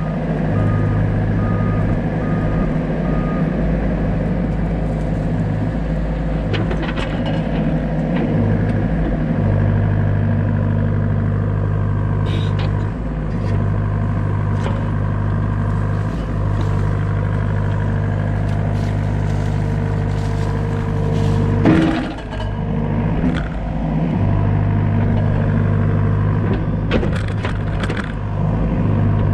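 Doosan DX63 mini excavator's diesel engine running steadily, its low note shifting in and out as it works, with scattered short metallic clanks, the sharpest about two-thirds of the way through.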